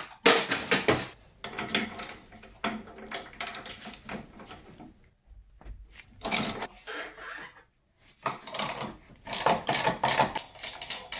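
Metal parts of a snowmobile chaincase clinking and rattling as the sprockets and drive chain are handled, in bursts of clicks with two short pauses past the middle.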